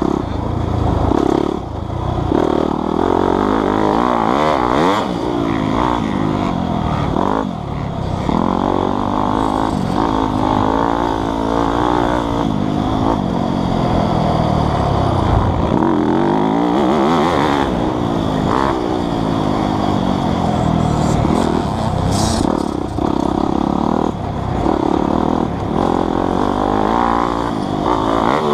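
Motocross bike engine revving hard, its pitch rising and falling over and over as the throttle is opened and shut through the gears while riding the track.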